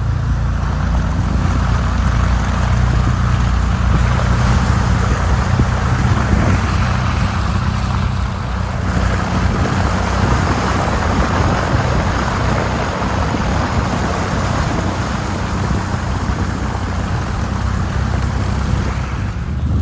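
Can-Am side-by-side's engine running steadily under way, towing a loaded trailer through the woods.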